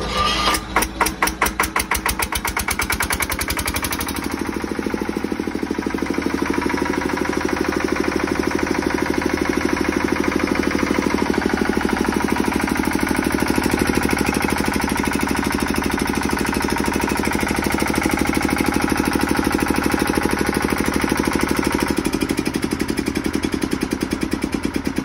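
A 10 kVA diesel generator set's engine is electric-started from its push button: the starter turns it over and it fires up with quick, uneven beats for a few seconds. It then settles into a steady, even-firing run.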